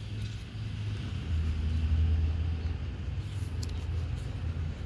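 Low, steady rumble like a motor vehicle running nearby, swelling about a second and a half in and easing later. A few faint light clicks come a little past the middle.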